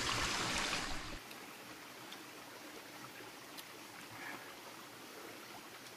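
Rushing stream water, loud and close, cuts off abruptly about a second in. A faint steady hiss with a few light ticks is left.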